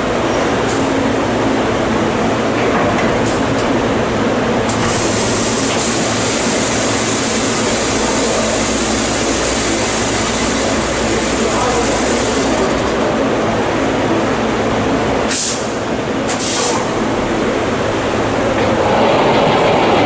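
Automatic drum-filling machine at work: a steady loud mechanical running noise, with a hiss lasting several seconds in the middle and two short, sharp hisses a second apart near the end.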